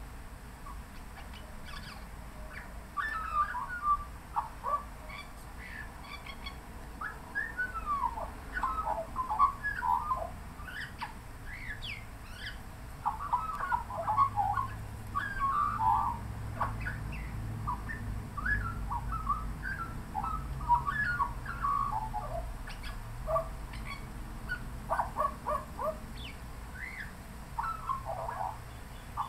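Australian magpie singing a long, rambling warble of quick, varied whistled and chortling notes, starting about three seconds in and continuing in phrases with short pauses. A faint low hum lies underneath through the middle part.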